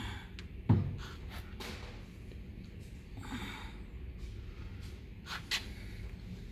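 Workbench handling noise from the sprayer pump repair: one heavy knock under a second in, then scattered light clicks, a brief scrape, and two sharp clicks near the end as metal pump parts and tools are handled.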